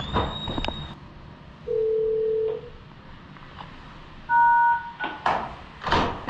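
Electronic beeps: a high tone held for about a second, then a single lower beep, then a louder beep of two pitches sounding together like a phone keypad tone. A few short knocks follow near the end.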